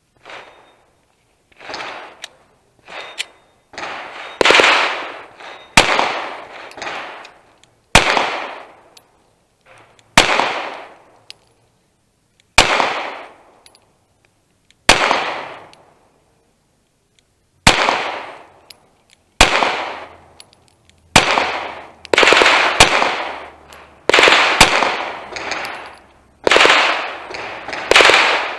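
Glock 43X 9mm pistol fired about twenty times at an uneven pace, a second or two between shots, each report ringing off in an echo lasting about a second. The shots come faster near the end.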